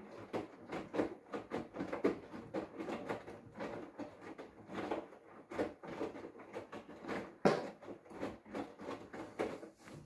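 Hoover front-loading washing machine turning its drum in the prewash: wet laundry and water slosh and slap inside in an irregular patter, with no motor hum, and the sound stops at the very end as the drum pauses.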